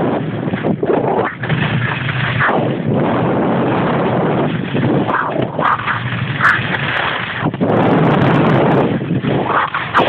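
Wind buffeting a phone's microphone during a fast ski descent: a loud, uneven rush with sudden surges and thumps.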